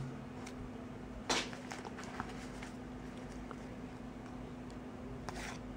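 Faint rustling and light taps of paper and playing cards being handled, with a short louder rustle about a second in and another near the end, over a faint steady hum.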